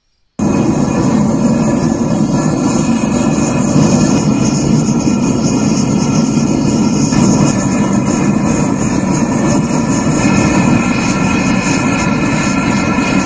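Clay forge roaring steadily while a blade heats to red in it, starting abruptly about half a second in.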